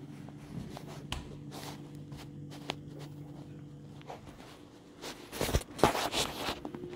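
Boots stepping and scuffing on a wooden floor, over a steady low hum. Near the end comes a louder burst of close rustling and knocks, as from the phone being handled against clothing.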